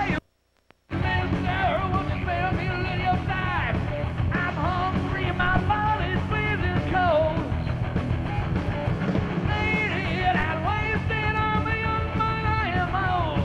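Heavy metal band playing live, with an electric guitar lead bending and wavering over drums and bass. The sound cuts out for under a second just after the start, then comes back at full level.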